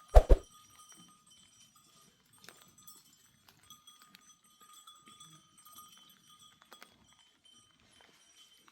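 Sheep and goats, with faint steady ringing from their bells and small scattered knocks. A single sharp thump right at the start is the loudest sound.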